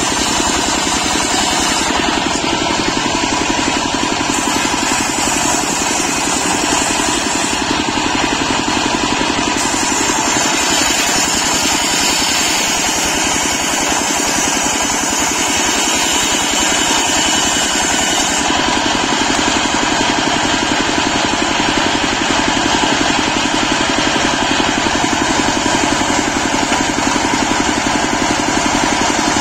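Large belt-driven circular saw blade ripping a teak log lengthwise, powered by a stationary engine running steadily. The high sound of the cut changes several times as the blade works through the wood.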